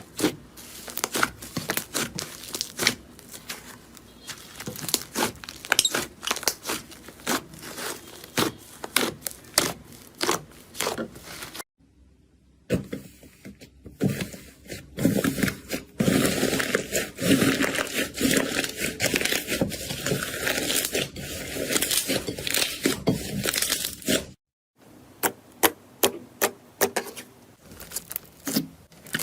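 Slime being squeezed, poked and stretched by hand, giving a fast run of sharp pops, clicks and crackles, in three separate stretches with brief breaks of silence between them; the middle stretch is a dense, continuous crackling.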